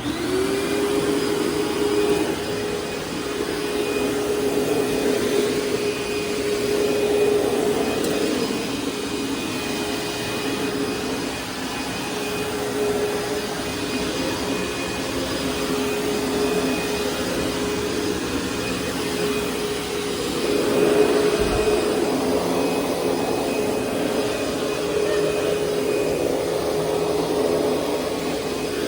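1998 Sharp Super Charged Twin Energy EC-T2840 upright vacuum cleaner switched on, its motor spinning up within half a second and then running steadily with a whine over a rushing hiss. It swells louder now and then, with a brief low bump about two-thirds of the way through.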